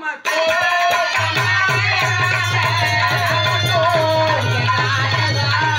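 Harmonium and dholak drum playing a folk tune together, the dholak keeping a steady beat under the harmonium's sustained melody. The music cuts out for a moment at the very start, then carries on.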